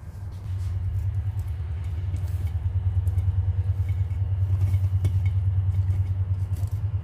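A loud, steady low rumble that swells about half a second in and holds, with faint light clicks and rustles of mushrooms being placed by hand into a bowl of vegetables.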